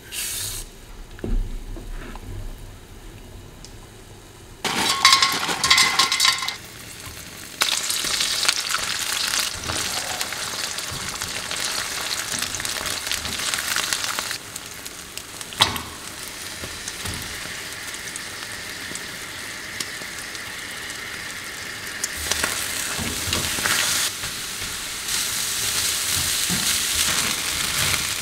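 Food sizzling in hot oil in a wok while it is stirred and scraped with a silicone spatula: eggs with green onion, then seafood fried rice. The sound is quieter at first, comes in loudly about five seconds in, then settles into a steady frying hiss with scattered scrapes and knocks.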